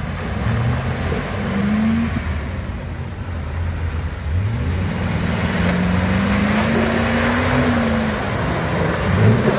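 Land Rover Discovery II engine revving under load as it pushes through deep mud. Its pitch rises about four seconds in, holds high, then eases off near the end, over the sound of tyres churning and splashing through mud.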